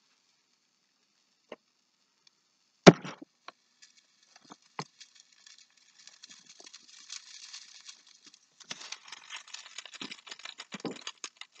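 Breaded catfish fillet frying in a pan: a sizzle that starts about four seconds in and turns into dense crackling about nine seconds in. A single sharp knock, the loudest sound, comes about three seconds in, with a few lighter clicks around it.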